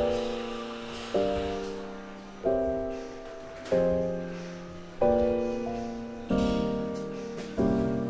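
Background piano music: a slow piece with one chord struck about every second and a quarter, each left to fade before the next.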